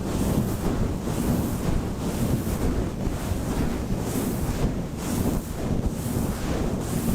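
A loud, steady rushing noise that starts suddenly, heaviest in the low end, like air blowing across the microphone.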